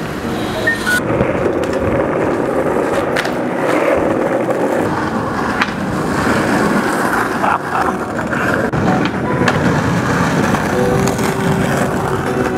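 Skateboard rolling on pavement, the wheels giving a steady rumble broken by several sharp clacks of the board.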